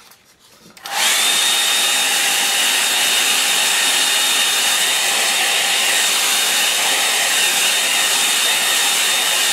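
Hand-held hair dryer switched on about a second in, then running steadily: a rush of air with a high, steady whine over it.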